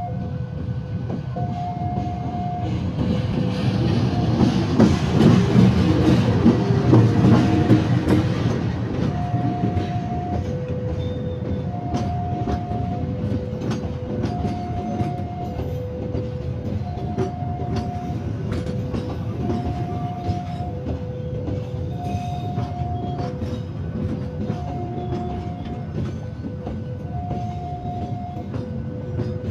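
Level-crossing warning alarm sounding two alternating tones, each about a second long, over a passing train. A diesel locomotive goes by loudly about four to eight seconds in, then the coaches roll past with steady rumbling and a quick run of wheel clicks over the rail joints.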